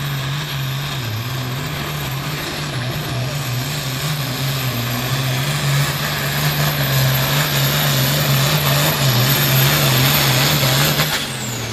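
International Harvester hot farm pulling tractor running at full throttle as it drags a weight-transfer sled, the engine note wavering under heavy load with a faint high whine above it. The sound grows louder midway and drops off sharply about eleven seconds in.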